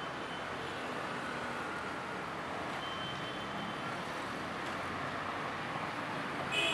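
Steady city street traffic noise from passing cars, motorcycles and auto-rickshaws. Near the end there is a short, loud high-pitched tone.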